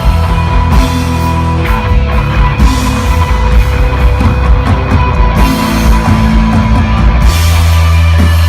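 Rock band playing live and loud: electric guitar, bass guitar and drum kit with cymbals, no vocals.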